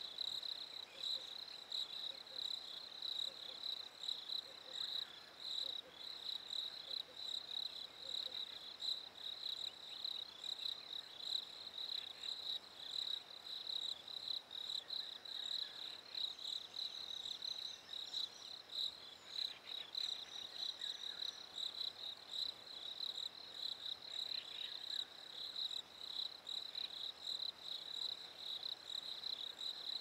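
Crickets chirping: a high, steady, rapidly pulsing chorus.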